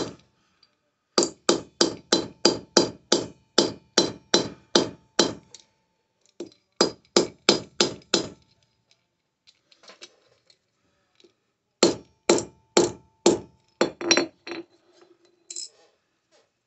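Hand-forging sterling silver: metal hammer blows striking the silver bar in quick runs of about three strikes a second, with short pauses between runs and a faint ring after the strikes.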